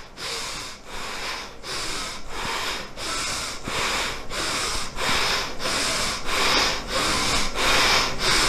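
Rapid, forceful breathing through the nose, about two breaths a second: a fast chest-pumping pranayama that expands and contracts the lungs. The breaths grow louder and a little quicker as it goes on.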